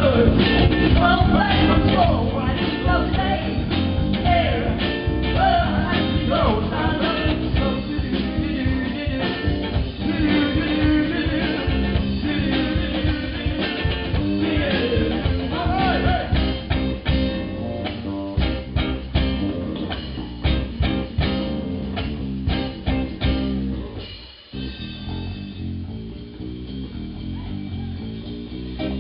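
Live rock band playing a song: a singer over electric guitar, bass guitar and drum kit. Near the end the band drops to a quieter passage.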